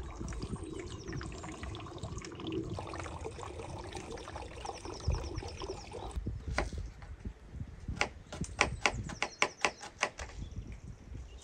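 Knife chopping on a wooden cutting board: a run of sharp knocks that starts about halfway through and comes about four or five a second near the end.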